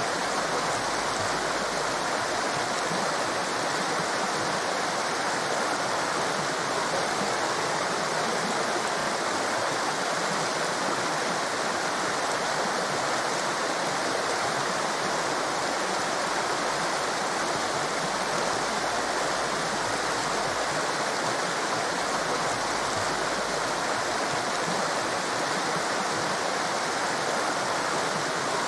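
A mountain torrent: fast water rushing steadily over rocks, a dense even roar with no breaks or changes.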